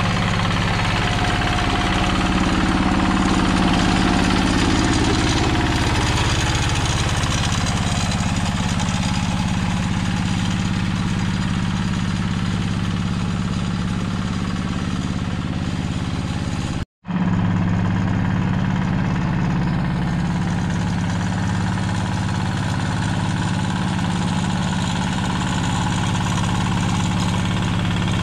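Yanmar two-wheel hand tractor's single-cylinder diesel engine running steadily under load while ploughing a flooded rice paddy. The sound drops out for an instant about two-thirds of the way through.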